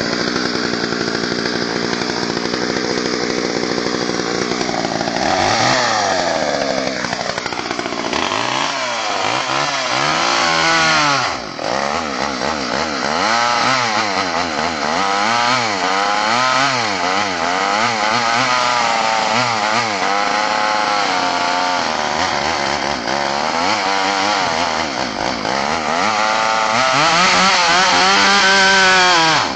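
Craftsman Solid State two-stroke chainsaw with a 14-inch bar cutting through a couch. It runs steadily for the first few seconds, then its engine speed rises and drops back over and over as the chain goes into the couch, runs high near the end, and falls off.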